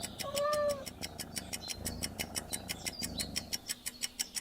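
A domestic cat meows once, a short call in the first second. A fast, even ticking follows, about eight ticks a second, and stops near the end.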